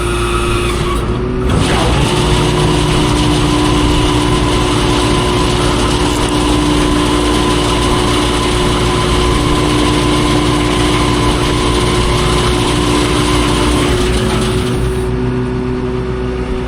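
Tractor engine revved up about a second and a half in, running steady at high speed, then throttled back down near the end.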